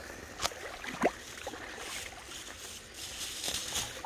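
Shallow creek water sloshing as someone wades through it, with two sharp knocks about half a second and a second in.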